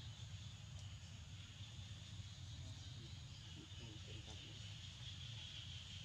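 Faint forest ambience: a steady, high-pitched insect drone over a low rumble.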